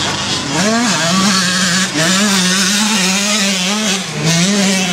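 Small motocross bike engine revving as it rides the dirt track, its note rising and falling with the throttle and dipping briefly twice.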